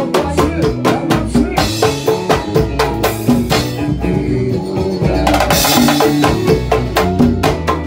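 Up-tempo band music: fast, dense drums and percussion over a steady bass line, with two brighter, hissier stretches in the middle.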